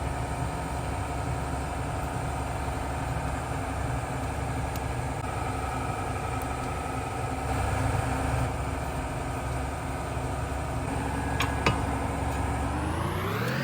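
Land Rover Discovery 2.2 diesel engine idling steadily, then its speed rising near the end.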